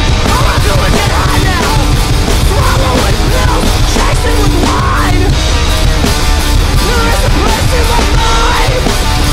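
Loud hard rock music with drums, playing without a break.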